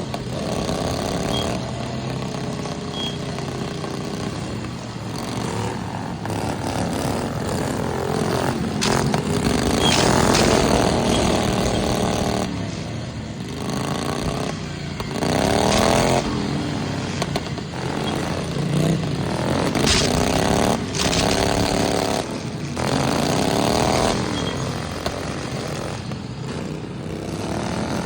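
Several lawnmower engines running and revving up and down again and again, with a few sharp knocks among them.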